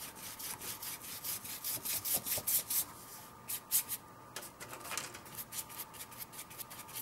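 A paintbrush scrubbing acrylic paint across black paper in quick back-and-forth strokes, about three or four a second, with a pause of about a second near the middle.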